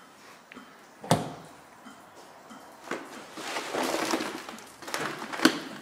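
Steel door of an old industrial oven or kiln being handled and shut: sharp metallic clanks about a second in and again near three seconds, a stretch of scraping, then a louder clank near the end.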